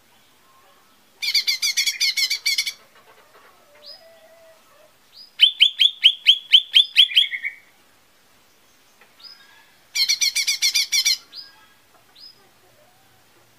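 Lesser green leafbird (cucak ijo mini) singing: a rapid chattering phrase about a second in, a louder run of about ten quick repeated notes in the middle that ends on a lower note, and another chattering phrase near the end, with soft short calls between.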